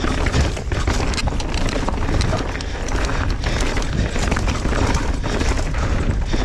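Mountain bike riding fast over a rocky trail: a dense, irregular clatter of the tyres striking rocks and the bike's chain and frame rattling, over a heavy low rumble on the action camera's microphone.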